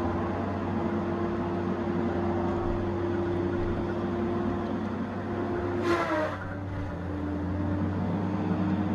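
Tigercat 870C feller buncher running, its engine and hydraulics giving a steady drone with a high whine. About six seconds in there is a brief louder burst, after which the whine settles at a slightly lower pitch.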